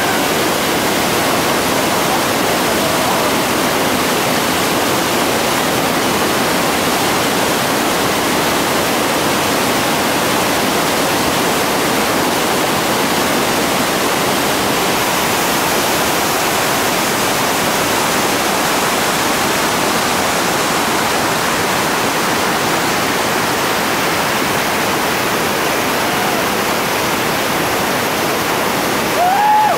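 Whitewater of the Chattooga River's Seven Foot Falls rapid, a steady, loud rush of falling and churning water. A brief high tone cuts in near the end.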